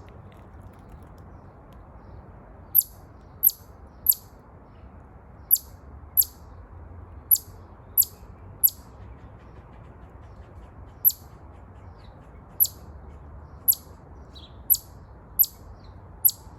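Chipmunk giving loud, sharp 'chip' calls: about fourteen short, high chips at irregular intervals of half a second to a few seconds, starting about three seconds in, over a faint steady background noise.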